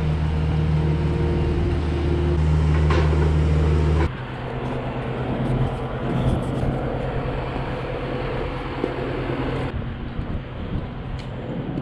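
Tractor engine running steadily with a low hum. About four seconds in, the sound changes abruptly to a noisier mix in which the engine hum carries on more quietly under a few knocks.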